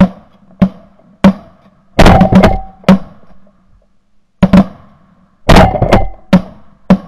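A ragged volley of shotgun blasts from several hunters firing at Canada geese overhead: about a dozen loud, sharp shots at uneven spacing, some nearly overlapping, in two bursts with a short gap in the middle.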